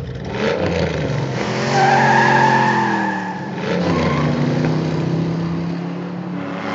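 Car engine sound effect for a toy car driving in. The pitch sinks slowly, breaks off about three and a half seconds in, then starts again and holds steady.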